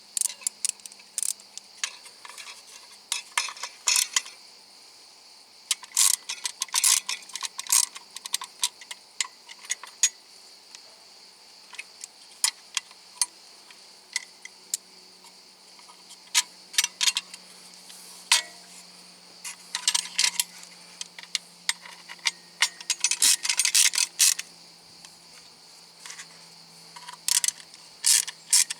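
Irregular metallic clicks and taps of hand tools and parts being handled during repair work, single and in quick clusters, over a faint steady hiss.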